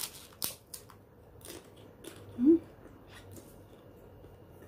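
Chewing a mouthful of kerupuk, a slightly soggy Indonesian cracker, with a few soft crunches in the first two seconds. About two and a half seconds in comes a short hummed 'mm'.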